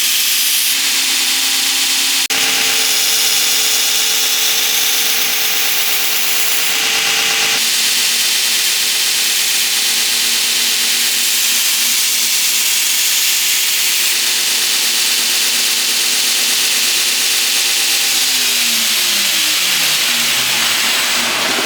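Knife-grinding belt grinder running, with a dense hiss of the abrasive belt on the steel blade over a steady motor hum as the blade's bevels are finish-ground. Near the end the motor is switched off and its hum falls in pitch as it spins down.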